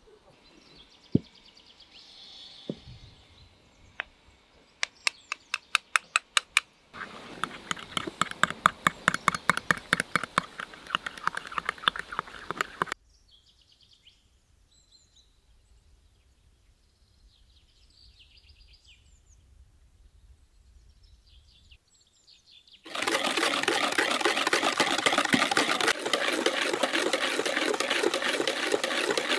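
Rapid clicking of a wire whisk beating egg in a plastic bowl, louder and denser near the end. A quieter stretch of similar fast clicking comes earlier, and in the lull between the two, small birds chirp.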